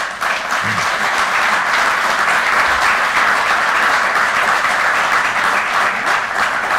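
Audience applauding: dense, steady clapping from many people that starts abruptly and holds for several seconds.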